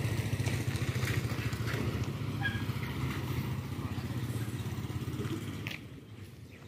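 A motorcycle engine idling with a steady, fast low pulse, fading away about five and a half seconds in.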